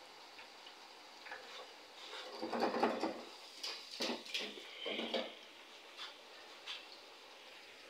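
Wire fry basket lifted out of a deep fryer and lowered back in, rattling and clattering against the stainless-steel fryer in a few bursts between about two and five seconds in, then two light clicks. Under it, the faint steady hiss of chips frying in oil.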